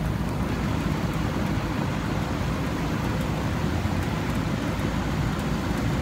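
Carrier rooftop package air-conditioning unit running, a steady rushing noise from its condenser fan and compressor.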